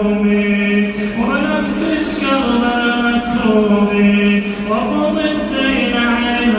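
A man's voice chanting unaccompanied in long, held notes that slide up and down in pitch.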